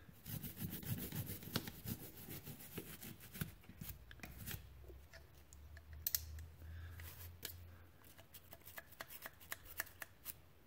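Toothbrush scrubbing the frame of an H&R Model 922 .22 revolver during cleaning: fast, scratchy brushing strokes, busiest for the first four seconds or so, then in shorter scattered bursts.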